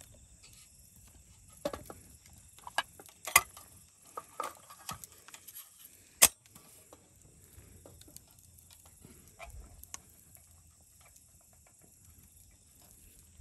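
Metal clicks and clanks of a Feuerhand hurricane lantern being handled: a handful of sharp knocks in the first half, the loudest about six seconds in, over a steady high hiss.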